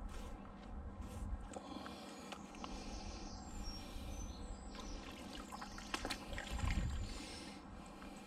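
Water trickling and dripping as a wet magnet-fishing rope is hauled in out of a canal, with a few faint bird chirps.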